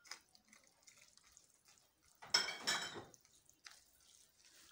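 Food and a spoon being handled in a glazed clay dish: a short rustle and clatter about two seconds in, with faint small ticks and drips around it.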